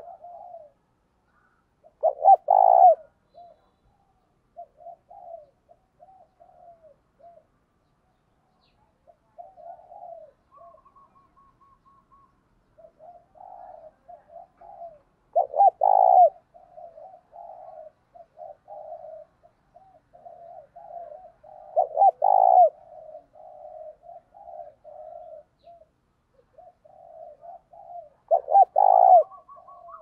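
Spotted dove cooing: four loud coo phrases, the last three about six to seven seconds apart, with softer, quicker runs of coos between them. These are the 'thúc' and 'gáy' calls that a caged decoy dove uses to call wild doves.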